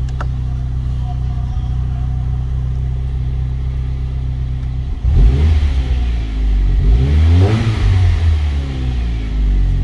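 Chevrolet Cobalt SS's four-cylinder engine idling steadily, then revved from about halfway through, the revs climbing and falling twice.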